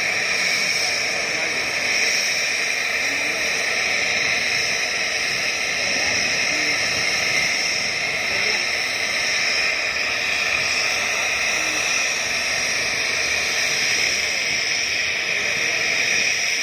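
Helicopter's turbine engines running on the ground: a steady high whine over a loud even hiss, with no rotor beat.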